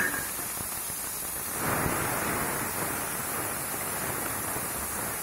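Onion paste sizzling as it fries in hot oil with whole spices, being stirred with a metal spoon; the sizzle swells for a moment about two seconds in.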